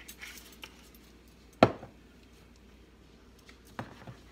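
A seasoning container set down on a wooden cutting board with a single sharp knock about a second and a half in, then a few lighter clicks near the end as the jars are handled.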